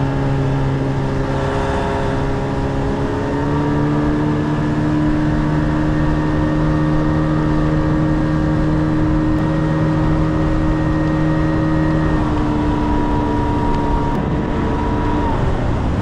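Small outboard motor pushing an inflatable dinghy along at a steady cruising speed, a constant engine hum with some wind and water noise. Its tone changes about twelve seconds in and drops near the end as the throttle comes back.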